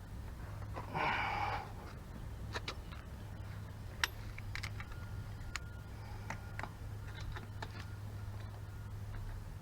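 A brief scraping rustle about a second in, then scattered sharp small clicks and taps, over a steady low hum.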